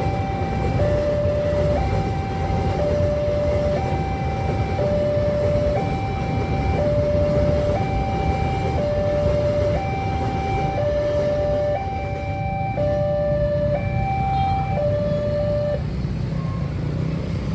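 Railway level-crossing warning siren sounding its two-tone alarm, a higher and a lower tone alternating, each about a second long, until it stops shortly before the end. A steady low rumble runs underneath.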